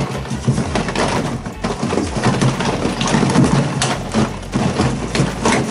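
Hand rummaging through a large cardboard box full of plastic blister packs: the packs clatter and knock against one another and the box in a dense run of clicks and thuds.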